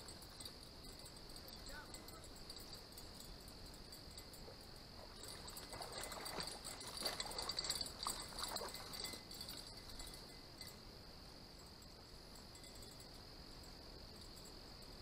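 A steady, high-pitched night chorus of crickets and other insects. Faint, indistinct mid-range sounds rise over it in the middle.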